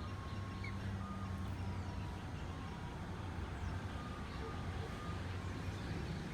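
A heavy vehicle's engine running steadily, with a high electronic beeping that sounds on and off, like a reversing alarm, and a few faint bird chirps over it.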